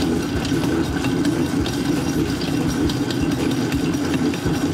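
Commercial planetary stand mixer running on its fast speed, its motor and gearbox giving a steady mechanical drone as the dough hook kneads sticky sourdough dough.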